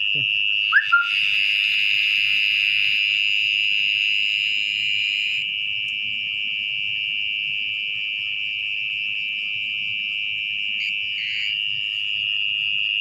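Mole cricket singing from its burrow: a continuous, steady high-pitched buzz held at one pitch, stronger for the first few seconds. Two brief sharp sounds come about a second in.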